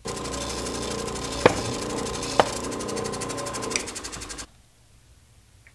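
Bench grinder motor running with a steady hum and a fine, rapid rattle, two sharp clicks about a second apart, then cutting off suddenly about four and a half seconds in.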